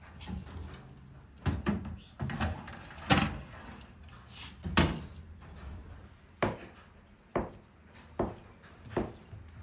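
Glass door of a Kumtel countertop electric oven opened and a metal baking tray of cookies pushed in, with several clunks and two loud bangs around the middle as the tray goes in and the door shuts. After that, a knife cuts a log of cookie dough into pieces, knocking on a wooden board about once a second.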